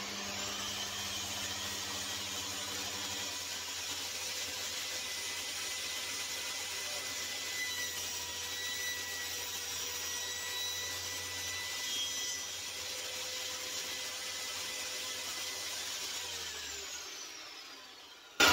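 Bosch GTS 635-216 site table saw running steadily with a high whine, its blade cutting through a length of wood around the middle. Near the end it is switched off and spins down, the whine falling in pitch as it fades out.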